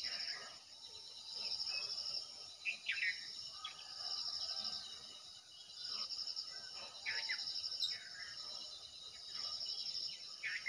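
Insects trilling in high-pitched, pulsing bursts, each about a second long and repeating every two seconds or so, with short bird calls over them.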